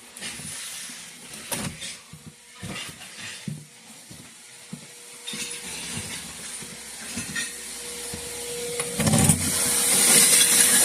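Scattered footsteps and knocks, then a power tool used for demolition starts running about five seconds in, with a steady hum and hiss that grows much louder near the end.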